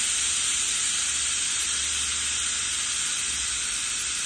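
United pressure cooker on a gas burner hissing steadily as steam escapes at its weight valve: the cooker is up to pressure and cooking. A faint low rumble runs beneath the hiss.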